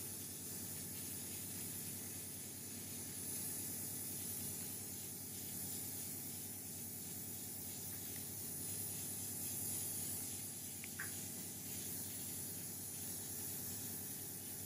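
Steady background hiss with a faint low hum, and one brief faint chirp about eleven seconds in.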